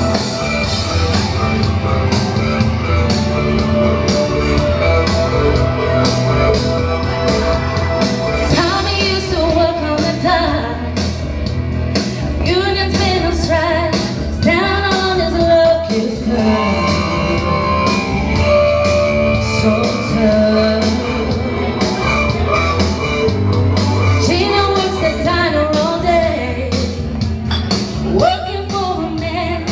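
A woman sings karaoke-style into a handheld microphone over a rock backing track. The voice comes in about nine seconds in, over a steady instrumental.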